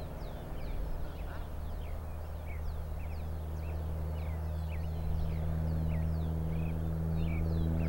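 Light single-engine propeller airplane droning steadily in flight, growing louder toward the end. Many small birds chirp in quick, high calls throughout.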